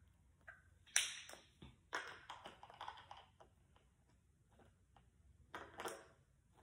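Fluffy slime being stirred in a bowl: a few brief scraping, sticky sounds, the loudest about a second in, a run of them around two to three seconds, and another near the end.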